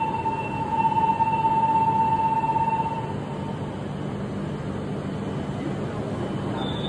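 A steady, high departure warning buzzer sounds at a shinkansen platform and cuts off about three seconds in. Under it runs the steady low hum of an E5-series shinkansen standing ready to depart.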